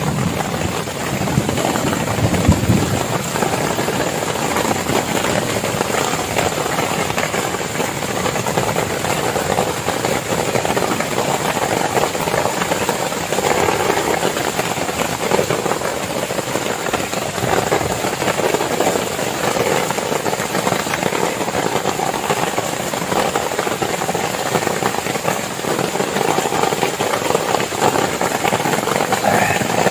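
Heavy rain falling steadily on a plastic tarp shelter, a continuous dense patter.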